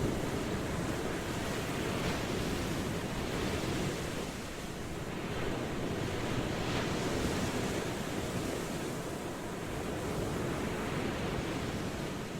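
Ocean waves washing in a steady wash of surf, swelling and easing gently every few seconds.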